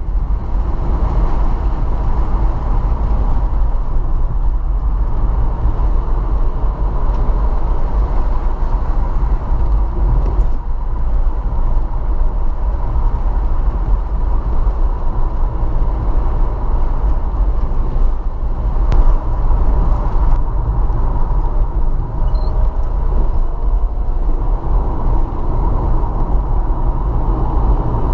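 Steady car road and engine noise from inside a moving car, a constant low rumble.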